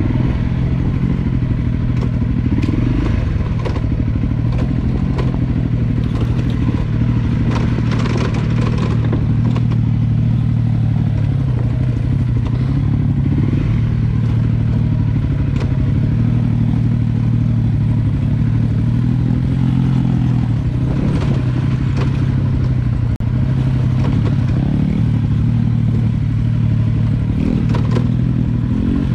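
Honda CRF250L's single-cylinder four-stroke engine running under way, its note rising and falling with the throttle. Scattered knocks and rattles from the bike on rough off-road ground come through, thickest about six to ten seconds in.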